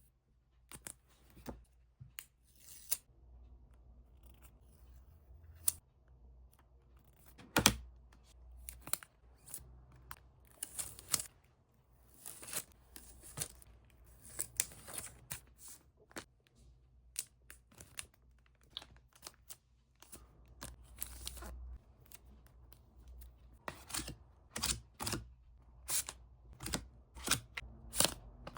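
Hands wrapping small cards in packing material: irregular crinkling, tearing and snipping sounds.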